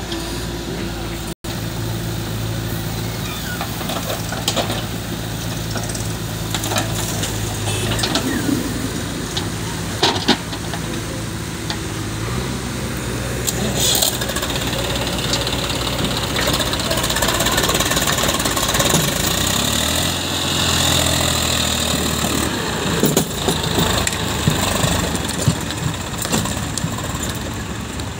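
Diesel engines of a JCB 3DX backhoe loader and an Eicher 480 tractor running steadily, with scattered knocks and clatter of soil and metal. The engine note changes about twelve seconds in and gets louder for a while after.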